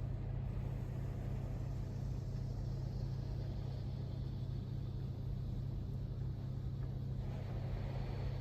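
A touch-free automatic car wash spraying a fine mist of water over a car, heard from inside the car as an even hiss over a steady low rumble. The spray grows stronger about seven seconds in.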